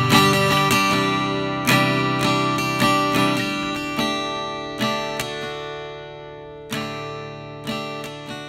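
Intro music: acoustic guitar strumming chords, each chord ringing out and fading before the next.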